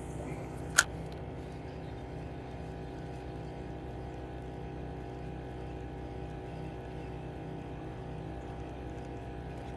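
A boat motor running steadily nearby, an even low drone, with one sharp click a little under a second in.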